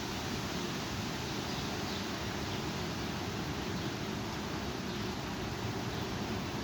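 Strong thunderstorm wind with rain: a steady rushing noise that does not let up, heaviest in the low range.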